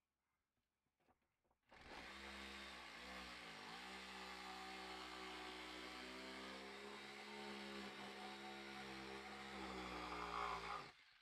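Corded reciprocating saw starting about two seconds in and running steadily as it cuts into the ceiling, its motor pitch dipping briefly under load early in the cut, then stopping just before the end.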